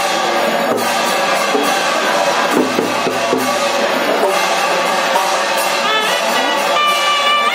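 Loud aarti music: drumming with horn-like wind instruments playing over it, a dense, unbroken wall of sound.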